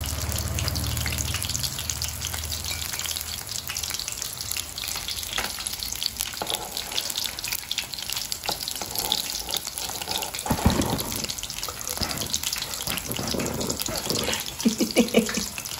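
Battered small shrimp fritters deep-frying in a pan of hot oil, a steady crackling sizzle.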